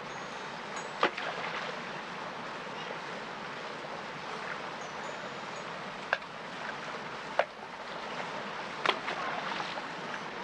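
Shallow rocky stream running steadily, with a sharp click or knock about a second in and three more in the second half.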